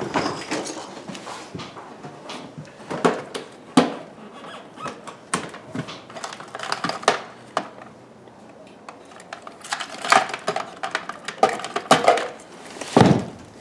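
Rummaging through a boat's under-seat storage compartment: irregular knocks, clatter and squeaks as objects are moved and the seat hatch is handled, with a heavier thump near the end.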